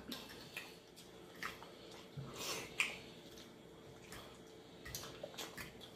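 Quiet eating sounds: soft chewing and mouth smacks, with scattered small clicks as fried chicken is pulled apart by hand and a fork works on a plate, over a faint steady hum.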